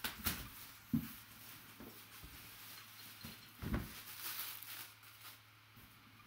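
Plastic shrink wrap being torn and peeled off a cardboard box, with crinkling and clicks, and soft thumps of the box being handled about a second in and just before four seconds.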